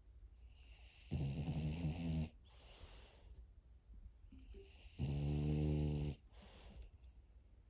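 French Bulldog snoring while asleep: two long snores about four seconds apart, with soft breathing between them.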